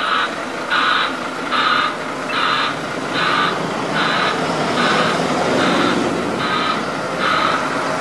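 A heavy vehicle's warning beeper sounding a steady series of beeps, about one every 0.8 seconds, over an engine running.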